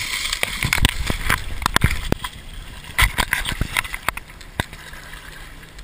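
Footsteps splashing and sloshing through shallow swamp water and brush, with irregular knocks and thumps of movement close to the microphone, busiest in the first two seconds and again about three seconds in, thinning out near the end.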